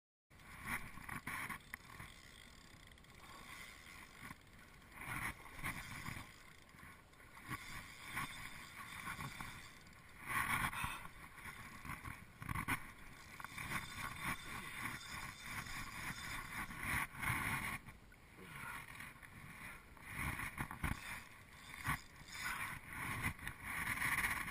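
Water lapping and splashing against the hull of a plastic fishing kayak, in uneven swells, with occasional knocks and rubbing from fishing gear being handled.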